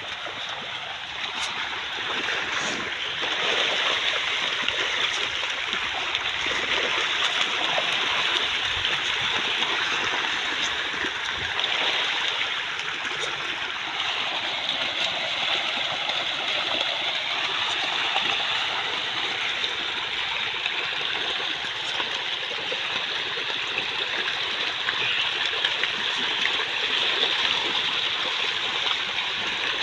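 A dense shoal of pangas catfish (striped catfish) thrashing and splashing at a pond's surface, a continuous wash of churning water. It grows a little louder a few seconds in, then holds steady.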